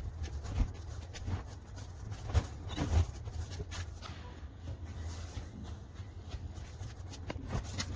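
Low, uneven wind rumble on the microphone, with a few stronger gusts and faint scattered scrapes and rustles.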